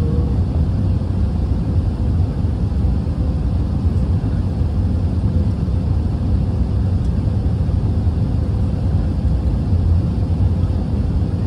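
Steady low rumble of cabin noise inside an Airbus A380 descending on approach, from the engines and the airflow over the fuselage, with a faint steady hum above it.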